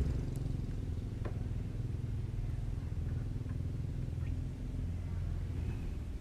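Heavy truck's diesel engine running steadily, a low rumble, with a few faint ticks over it.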